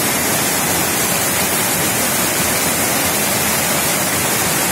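Swollen torrent in flood, muddy water churning and rushing down a concrete-walled channel in a loud, steady rush.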